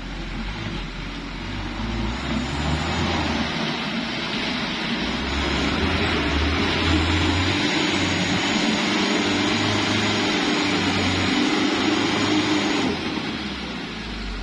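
A light dump truck's diesel engine labouring under load as it climbs a slippery, muddy hill, growing louder as the truck comes closer, then easing off about thirteen seconds in.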